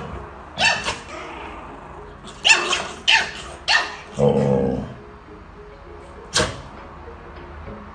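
Small puppy barking in five short, high-pitched yaps spread over several seconds, with one lower, longer call about four seconds in.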